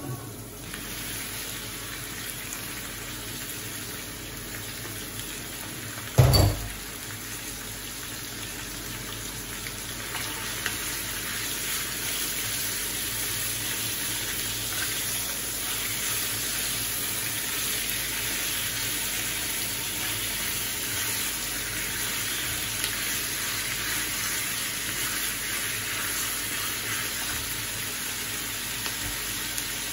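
Pork belly strips frying in a pan with onion and garlic: a steady sizzling hiss that grows a little louder about ten seconds in. One dull thump about six seconds in.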